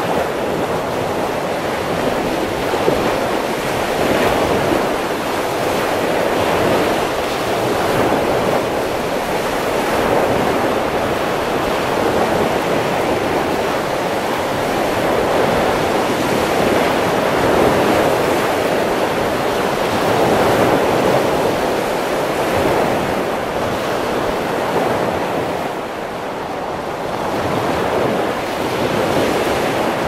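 Ocean surf: waves breaking on a shore in a continuous wash that swells and eases slowly, dipping briefly a little before the end.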